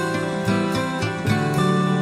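Instrumental background music with a held low note and changing notes above it.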